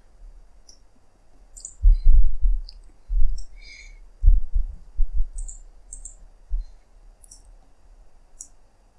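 Computer mouse clicks and scroll-wheel ticks, short and sharp, scattered throughout. Several dull low thumps between about two and six and a half seconds in are the loudest sounds.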